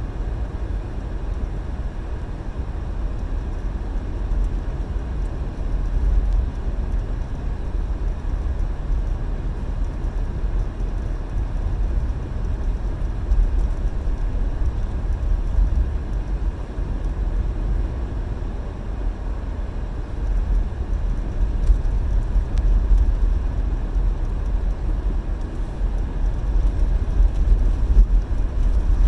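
Car driving on a snow- and ice-covered road, heard from inside the cabin: a steady low rumble of tyres and engine that swells a little now and then.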